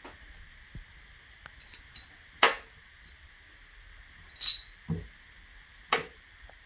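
Brass cleaning rod and pistol barrel clinking and knocking against each other as they are handled and set down: a handful of sharp metallic clinks, the loudest about four and a half seconds in.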